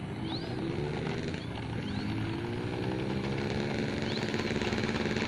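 Engine of a 1.2 m Edge Sport RC model airplane running on the ground, its pitch rising slowly as the throttle comes up.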